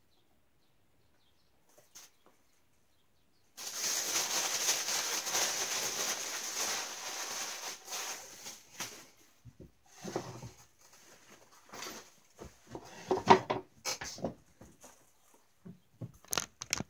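A plastic packaging bag crinkling and rustling as it is handled, starting suddenly a few seconds in and lasting about five seconds, followed by scattered short rustles and knocks of handling.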